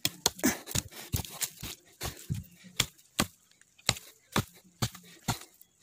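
Khukuri blade chopping at the base of a thin, dry sapling: a string of sharp, irregular strikes, about two a second.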